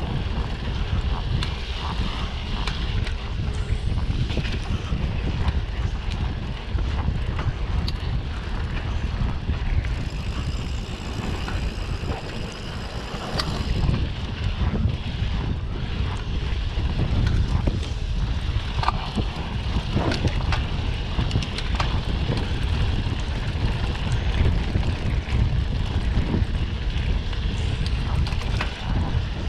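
Wind buffeting a mountain biker's microphone while riding a dirt trail, a steady low rumble with tyre noise and a few short knocks from the bike going over bumps.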